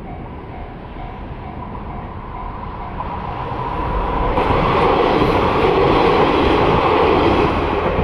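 Level-crossing warning bell ringing in a quick repeating pattern while a Tsuyama Line diesel train approaches. The train's rumble and wheel noise build from about four seconds in and soon drown out the bell.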